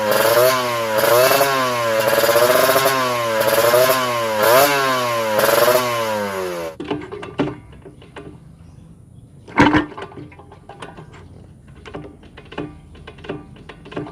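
Kawasaki Ninja RR 150 two-stroke engine being revved repeatedly, the note rising and falling about once a second, through an exhaust with its baffle cone and silencer insert removed. After about seven seconds it cuts off suddenly, leaving quiet scattered clicks and one sharp knock.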